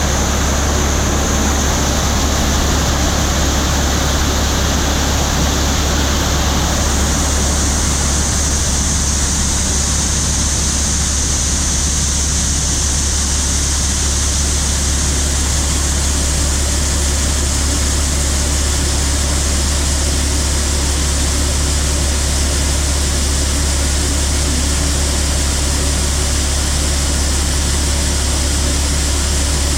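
Heavy vehicle engine running at a steady speed: a constant low drone with hiss over it, the hiss brightening a little about seven seconds in.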